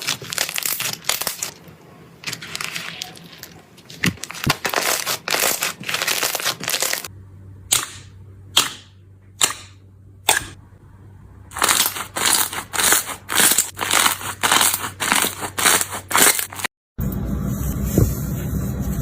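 Slime being squeezed and poked by hand, giving rapid crackling, popping clicks. The clicks thin out to a few single pops between about eight and eleven seconds in, then turn dense again. About seventeen seconds in they break off, and a steady hiss with a low hum follows.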